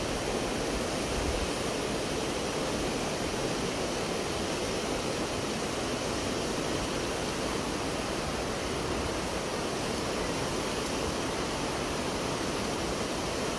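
Steady, even rushing noise with no pitch, rhythm or distinct events, holding one level throughout.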